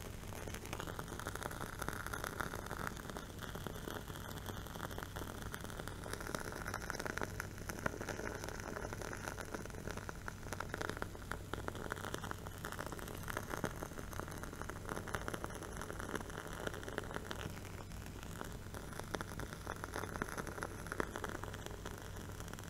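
Single-ply wooden candle wick burning, crackling with many small, irregular pops and ticks.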